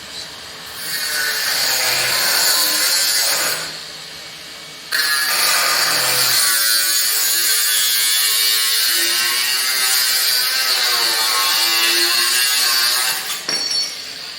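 MIG welder arc buzzing and crackling in two runs: a short burst of about three seconds, a pause of about a second, then a longer steady run of about eight seconds that stops shortly before the end.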